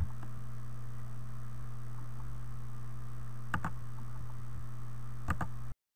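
Steady low electrical hum of the recording setup, with two mouse clicks about three and a half and five seconds in. The sound drops out for a moment near the end.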